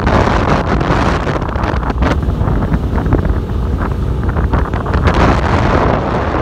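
Strong wind buffeting the microphone on a moving ship's open deck: a loud, steady rushing rumble that flickers with the gusts.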